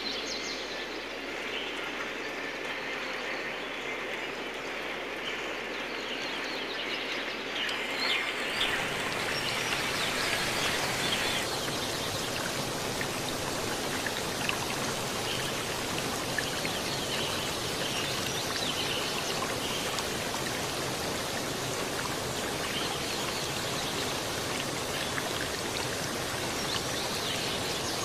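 Steady rain falling on garden plants, soil and wet paving: a dense, even patter of drops. About eight and a half seconds in the sound becomes fuller, with more low rumble.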